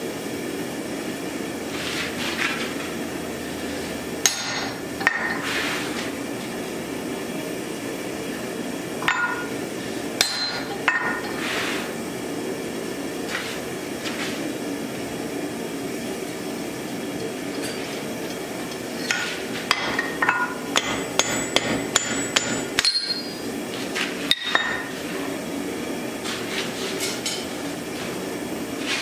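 Blacksmith's hammer striking a red-hot axe head on the anvil: a few separate blows, then a quick run of about ten strikes a little over halfway through. A steady low hum runs underneath.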